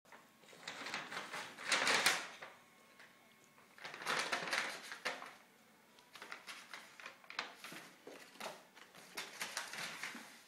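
A black shopping bag rustling and crinkling as a kitten scrambles into and around it, in irregular bursts: loudest about two seconds in, again around four to five seconds, then lighter scattered crackles.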